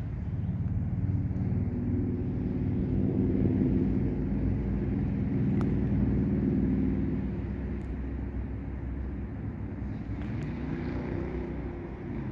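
Diesel-electric locomotive engine running with a low, steady drone that swells for a few seconds and then eases back, as when switching cars in a yard.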